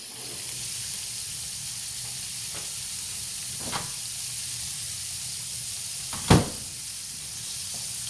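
Turkey cutlets frying in hot oil in a skillet, a steady sizzle. A softer click comes about a third of the way in, and a single sharp knock about six seconds in is the loudest sound.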